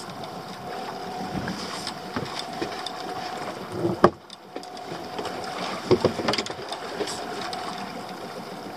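Steady water and wind noise around a small open fishing boat at sea, with a sharp knock about four seconds in and a few smaller knocks around six seconds.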